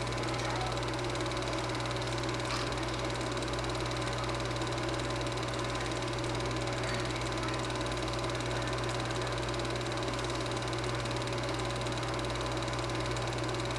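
Super 8 film projector running with a steady mechanical hum and whir that does not change.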